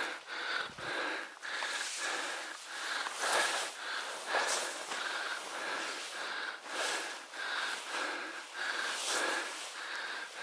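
A man breathing hard while wading through marsh grass in waders, with grass brushing past and a short rustle repeating about twice a second as he moves.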